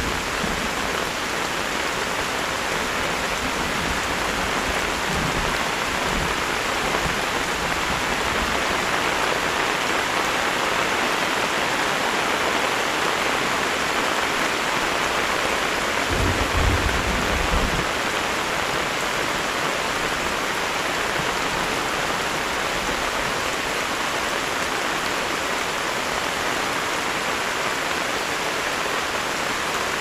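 Heavy rain falling steadily, a dense even hiss, with a brief low rumble about sixteen seconds in.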